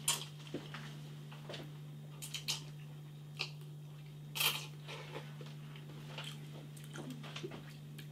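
Slurping and chewing of ramen noodles from a bowl, in short, scattered bursts, the loudest slurp about four and a half seconds in, with a few light clicks of the fork against the bowl. A steady low hum runs underneath.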